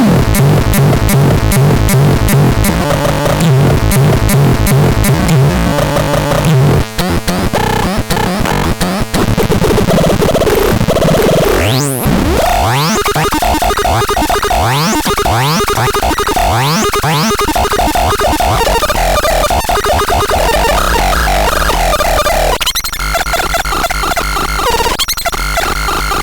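Harsh, chaotic electronic noise from the ASTA PTS 61. First comes a dense stutter of rapid clicks, then about halfway through a run of quick swooping pitch sweeps, and it settles into steadier buzzing tones near the end.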